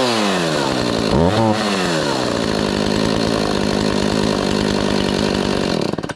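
2007 Husqvarna 450 two-stroke chainsaw just after a cold start, its revs falling away, one short blip of the throttle about a second in, then a steady idle until it is switched off near the end. The owner calls it a little boggy.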